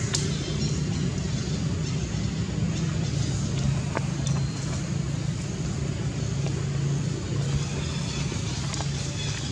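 A steady low rumble with a faint hiss, unchanging throughout, and a couple of faint clicks, one about four seconds in.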